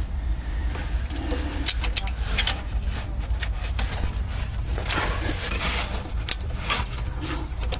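A few sharp clicks and light knocks at irregular intervals over a steady low hum.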